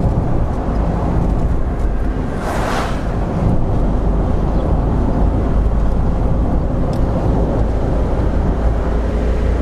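Steady road and engine noise of a moving car, a low rumble with hiss, with a brief swell of hiss about two and a half seconds in.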